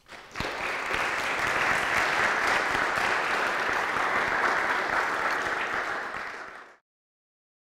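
Audience applauding. The applause builds within the first half second, holds steady, and cuts off suddenly near the end.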